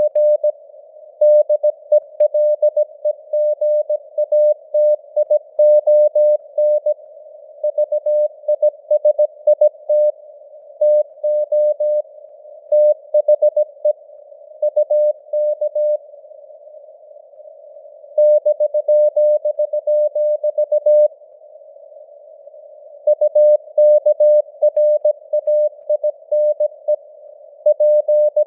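Morse code at 17 words per minute: a single keyed tone sending dots and dashes over a narrow band of simulated radio hiss. Twice the tone drops away for a second or two and only the hiss remains, with the signal strength fading up and down (QSB).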